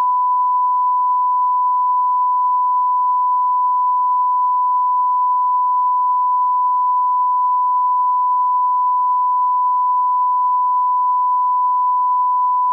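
Steady 1 kHz sine test tone, the line-up reference tone that goes with colour bars, held unbroken at one pitch.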